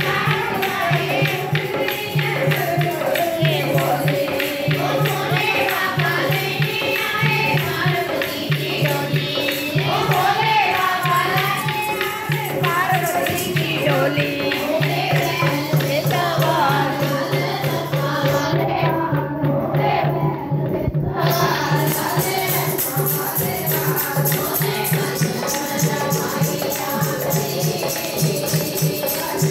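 Hindu devotional kirtan: a group of women singing a hymn together, with jingling tambourine-like percussion and a steady, repeating low beat underneath.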